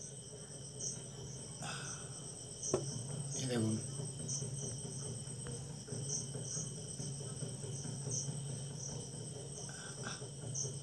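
Insects chirping steadily, a constant high trill with regular pulses, over a low steady hum. About three seconds in there is a click and a brief falling sound.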